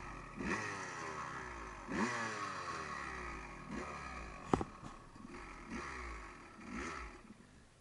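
Off-road vehicle engine revved in a series of short throttle blips, each dying back down, as the freshly field-repaired snapped throttle cable is tried out. A single sharp click about halfway through, and the engine fades near the end.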